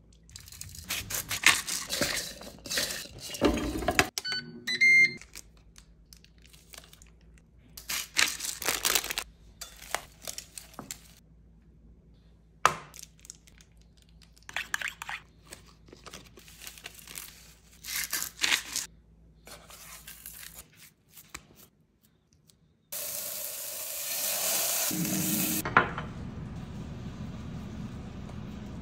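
Kitchen prep sounds in short bursts: a ramekin, a spatula and dishes clinking and knocking on a plastic cutting board and counter. A few seconds of steady hiss come near the end.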